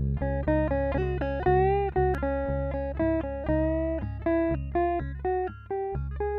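Resonator guitar played with a slide: a melody of plucked notes, several gliding up or down in pitch, over a steady low bass note.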